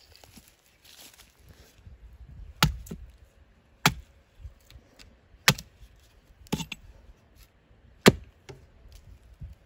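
A hatchet chopping a point onto a thin wooden stake: five sharp chops, roughly one every second and a half, with a few lighter knocks between them.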